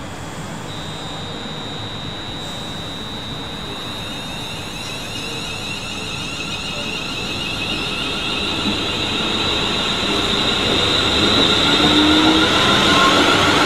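Class 350 Desiro electric multiple unit moving slowly through the station, with a high steady whine starting about a second in over the running noise. The whine and the running noise grow louder toward the end.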